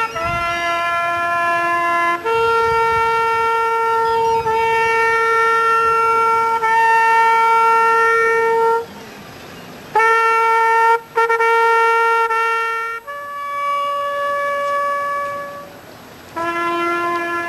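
A solo trumpet playing a slow military call of long held notes on three pitches, broken by short pauses between phrases: an honours call for the dead at a wreath laying.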